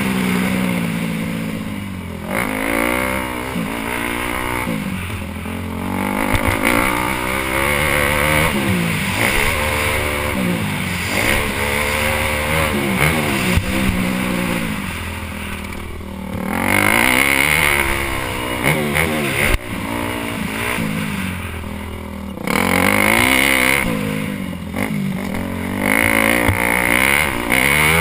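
Motocross dirt bike engine heard from the rider's helmet camera, revving up and dropping back again and again as the bike is ridden hard around the track. There are brief lulls where the throttle comes off, then it pulls hard again.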